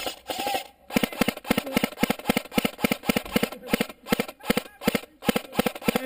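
Amoeba 007 airsoft electric rifle firing a rapid string of single shots, about six a second and slightly uneven, starting about a second in.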